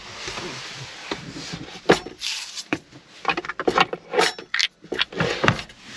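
A storage drawer being opened and spice jars and small kitchen items clinking and knocking as they are rummaged through, a run of quick clatters from about two seconds in.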